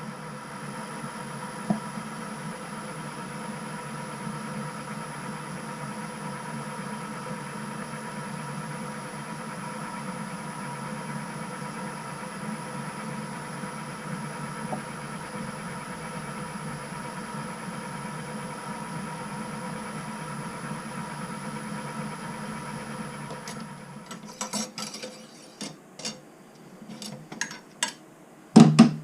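Metal lathe running steadily, with a constant hum and a few fixed whining tones. It stops a few seconds before the end, and a run of sharp metal clicks and knocks from parts being handled follows, the loudest just before the end.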